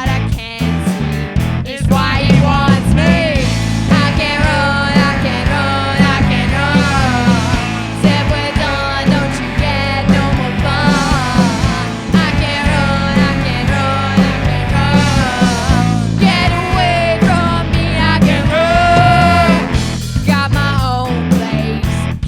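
Rock band playing live: drums, bass guitar, electric guitar and tenor and baritone saxophones, with a lead melody line bending in pitch over a steady beat.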